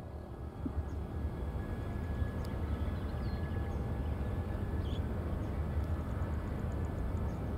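Distant low rumble of a Boeing 777-300ER's GE90 jet engines at taxi power, steady with a faint whine above it, growing a little louder about a second in.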